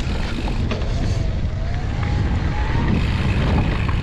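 Electric mountain bike's motor whining, its pitch rising and falling slowly, over a steady rumble of wind on the microphone and tyres on a dirt trail.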